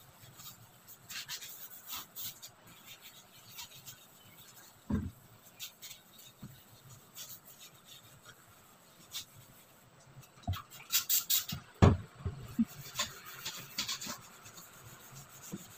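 Scrubbing and handling a kitchen range hood's metal grease filter with a scouring sponge: scattered scrapes, rubs and small clicks. A denser run of knocks and scraping comes about two-thirds of the way through.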